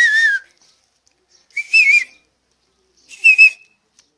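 Loud finger whistling: a warbling whistle that stops about half a second in, then two short whistles a little higher in pitch, about a second and a half apart.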